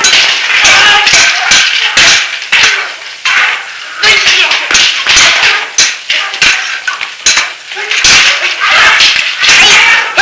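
Sword-fight sound effects on a film soundtrack: many sharp clashes of blades in quick, irregular succession, mixed with swishing strokes.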